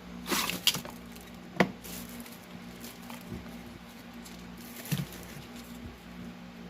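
Handling noises from unpacking a selfie-stick tripod and its accessories: a few light clicks and rustles, the sharpest about a second and a half in and another near five seconds, over a steady low hum.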